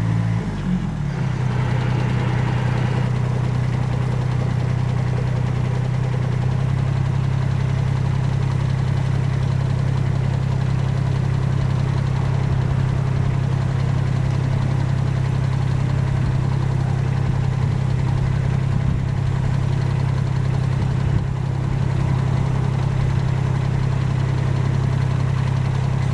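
Kubota BX23D compact tractor's three-cylinder diesel engine running steadily while mowing; its note drops about a second in and then holds.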